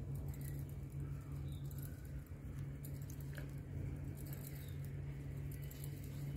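Knitting needles clicking and scratching softly against each other and the wool as stitches are worked, over a steady low hum.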